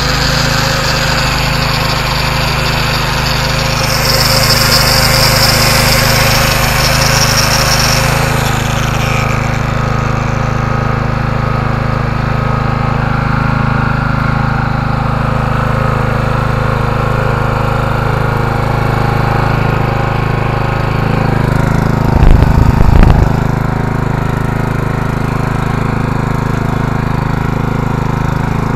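Honda GX single-cylinder petrol engine driving a generator, running at steady speed. An electric power tool whines on top for the first eight seconds or so, then winds down. About 22 seconds in there is a brief loud low rumble.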